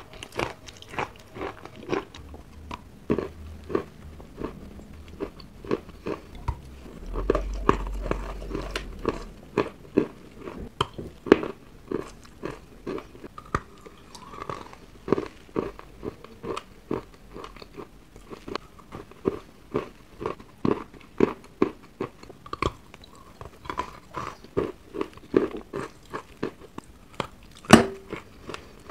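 Wet chalk being bitten and chewed close to the microphone: soft, slushy crunches, roughly two a second. A dull low rumble about seven seconds in, and one sharper, louder crunch near the end.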